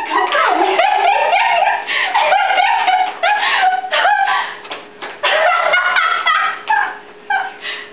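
Women laughing, loud and high-pitched, in long runs of giggles broken by short pauses.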